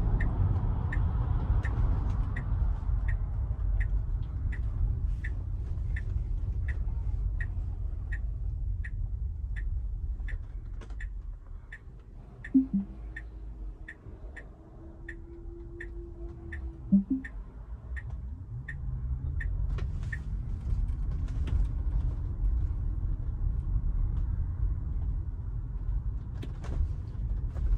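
Tesla Model Y turn signal ticking about one and a half times a second over low road rumble inside the cabin during a U-turn. The ticking stops about two-thirds of the way in. Just before it stops there are two sharp clicks a few seconds apart with a short held tone between them.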